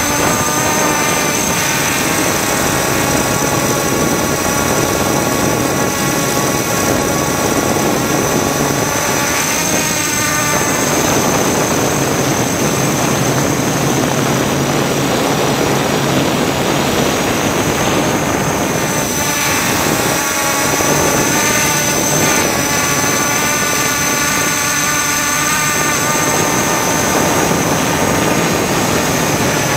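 Electric drone motors and propellers, heard from the camera on board: a steady whine made of several pitches at once. The pitches shift as the motor speeds change about ten seconds in and again about twenty seconds in.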